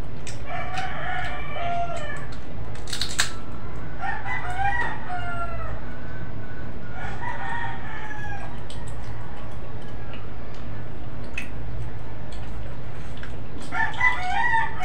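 A rooster crowing four times, a few seconds apart, over a steady low hum. There is one sharp click about three seconds in.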